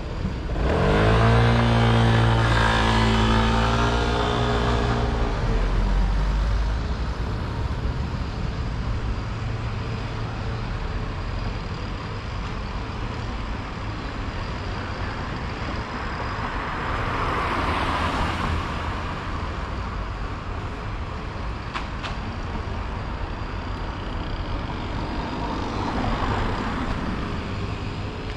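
Motor vehicles pulling away from a crossing in city street traffic. An engine note rises loudly about a second in and fades over the next few seconds. After that comes a steady traffic rumble, with vehicles passing about two-thirds of the way through and again near the end.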